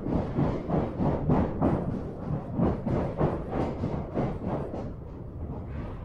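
Running noise of a Kyoto Municipal Subway Tozai Line 50 series train heard inside the car: wheels on rail in the tunnel with uneven clattering, easing somewhat near the end.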